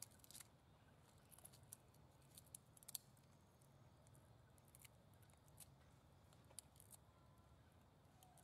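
Faint, scattered small clicks over near silence: a long-tailed macaque nibbling and chewing food held at its mouth. A few clicks come close together about three seconds in.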